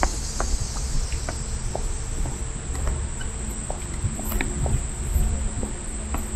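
Footsteps going down steps, irregular sharp taps, over a steady high chirring of insects and a low rumble of wind on the microphone.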